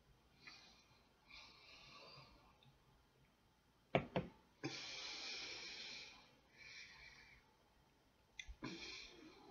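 A sip of beer from a glass. Then a couple of sharp knocks as the glass is set down on the table about four seconds in. Soft hissing breaths out follow while the beer is tasted.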